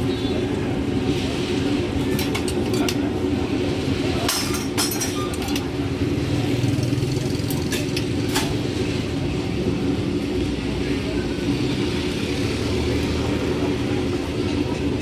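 Clinks of a steel ladle against bowls and pots, in short clusters about two, four to five, and eight seconds in, over a steady low hum of stall and street noise with voices in the background.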